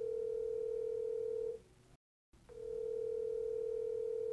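Telephone ringback tone heard through a smartphone's speaker: a steady two-second tone that sounds twice with a short break between, meaning an outgoing call is ringing on the other end, not yet answered.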